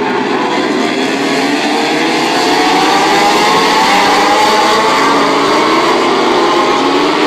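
A pack of MotoGP racing motorcycles accelerating through the corners, several engines at once with overlapping rising notes. The sound grows louder about two and a half seconds in as the bikes come closer.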